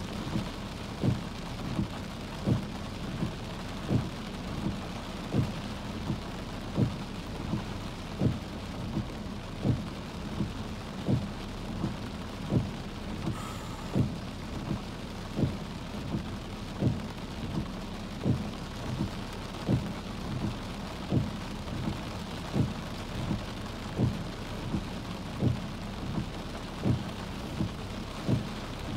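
Steady rain falling, with a regular low thump repeating about three times every two seconds.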